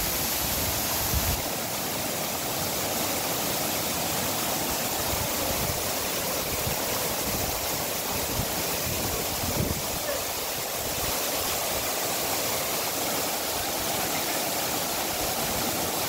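Steady rush of falling water from a waterfall, an even hiss from low to high with no pauses, with a few brief low bumps near the start and about ten seconds in.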